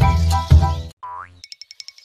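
Children's background music with a heavy beat that stops about a second in, followed by a short rising cartoon 'boing' effect and then a run of quick, high twinkling ticks.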